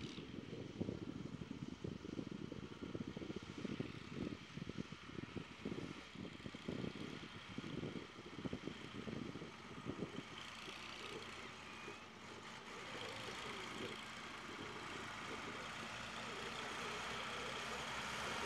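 Tractor diesel engines running, with uneven low buffeting through the first half. From about ten seconds in, a steady engine note takes over and grows louder as a red SAME Jaguar 95 tractor drives closer.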